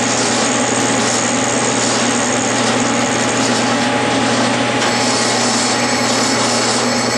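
Clausing metal lathe running with its spindle turning, a steady motor-and-drive hum with the hiss of the tool cutting the tip of a mild steel cone. The high hiss changes about five seconds in.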